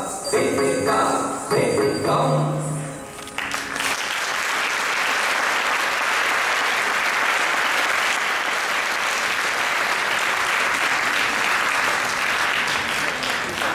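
The dance music ends with a held low note about three seconds in. The audience then applauds steadily.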